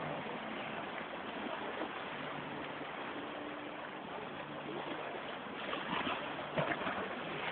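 Sea waves washing over shore rocks, a steady rush of water, with a few louder splashes near the end.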